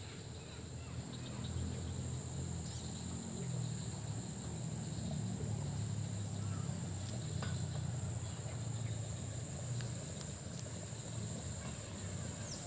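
A steady, high-pitched chorus of insects, with a low rumble underneath.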